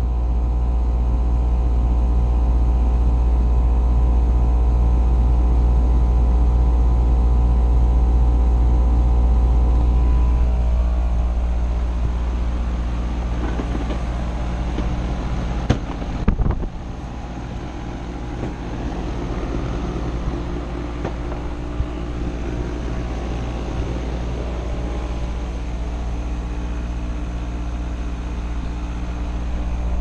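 Outdoor air-conditioning condensing unit of an R-410A system running: a steady compressor hum with the condenser fan. There is a brief click about 16 seconds in, after which it runs a little quieter.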